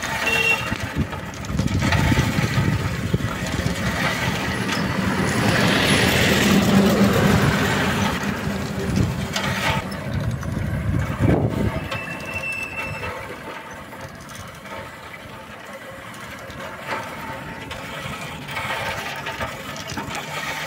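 Road noise while riding a bicycle: wind buffeting the microphone, with a motor vehicle passing that is loudest about six to eight seconds in and fades after about eleven seconds.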